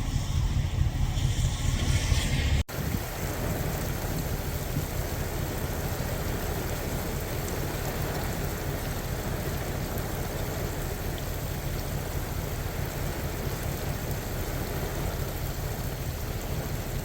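Steady rush of heavy rain and water noise. A louder low rumble in the opening seconds cuts off abruptly a little under three seconds in.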